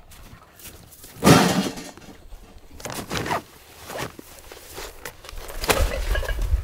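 Footsteps crunching on thin snow as heavy gear bags are carried, dropped and dragged, with a loud thump about a second in.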